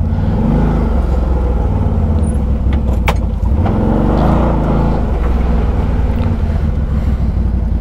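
ATV engine running at low revs, its pitch rising and falling a couple of times, with a sharp click about three seconds in.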